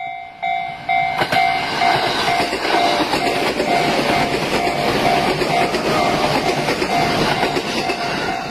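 Japanese railway level-crossing alarm ringing in even pulses about twice a second, while a JR 211 series 2000-subseries electric train passes over the crossing, its wheel and running noise starting about a second in and staying loud.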